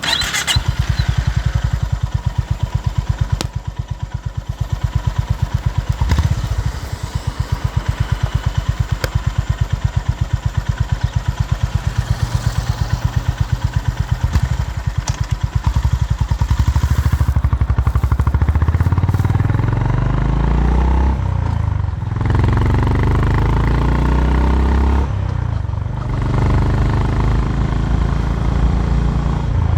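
Honda H'ness CB350's air-cooled single-cylinder engine and exhaust, thumping at a steady low beat, then from a bit past halfway its speed rising and falling again and again.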